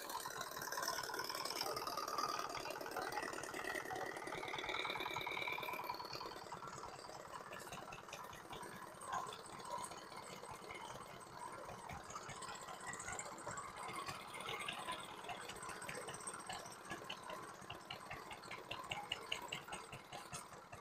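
Small vintage stationary engines running at idle, a fast, even run of light ticks and beats that grows crisper in the last few seconds. A faint wavering whistle rises and falls in the first few seconds.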